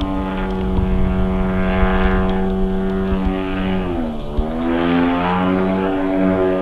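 Single-cylinder two-stroke DA50 petrol engine of a radio-controlled Yak 54 aerobatic plane in flight, running through a Zimmerman muffler pipe. The steady engine note dips in pitch about four seconds in and then climbs back.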